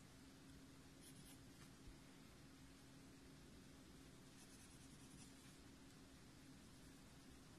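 Faint pencil strokes on drawing paper: short sketching passes about a second in and again around four to five seconds in, over a faint steady hum.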